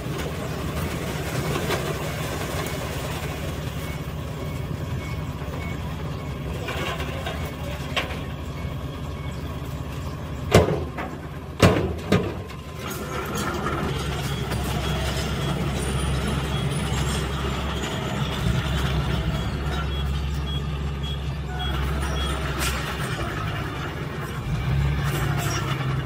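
Heavy diesel dump truck engines running steadily while a truck tips and unloads stone and soil, with three loud sharp bangs about ten to twelve seconds in. The engine sound swells from about halfway on as the trucks move. An intermittent high beeping can be heard in places.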